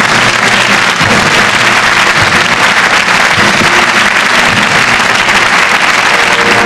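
Audience applauding, a dense steady clapping with no break.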